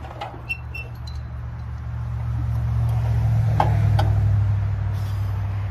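A low, steady motor hum that swells about halfway through and then eases off. A few light clinks come early on, and two sharper knocks sound near the loudest point.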